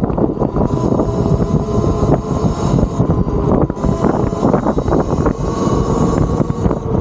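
Riding noise from a Talaria Sting MX4 electric dirt bike under way: wind buffeting the microphone and a steady low rumble, with a faint steady whine on top.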